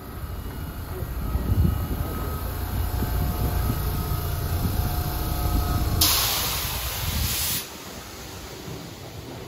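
Seibu 10000 series train moving off from the platform: a low rumble of running gear and motors with faint steady whine tones, building over the first couple of seconds. About six seconds in, a loud hiss of air lasts about a second and a half and cuts off suddenly.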